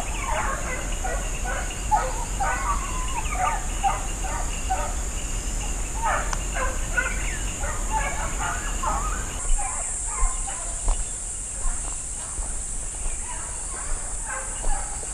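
A pack of hunting hounds baying in the distance while on the trail of a peccary, many short scattered cries overlapping. A steady high insect drone runs underneath and gets louder about two-thirds of the way through.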